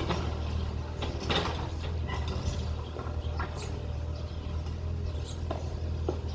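Bulldozer's diesel engine running steadily, with scattered metallic clanks and squeaks from its moving parts.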